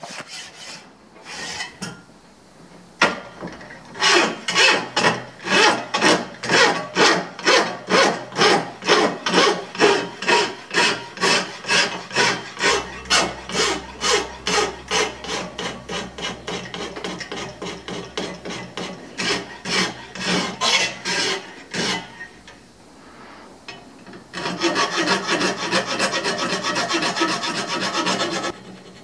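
Hand file rasping across a forged steel knife blade, draw-filing the bevels flat in regular strokes about two a second. Near the end the filing turns quicker and denser for a few seconds.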